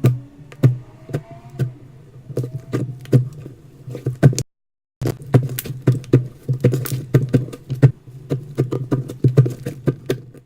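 Slime being worked by hand, giving dense sticky pops and clicks in quick, irregular succession. The sound drops out completely for about half a second midway.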